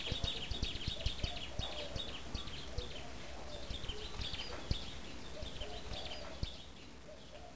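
Birds chirping and twittering in quick repeated calls over a soft outdoor ambience, with scattered low taps; it grows quieter near the end.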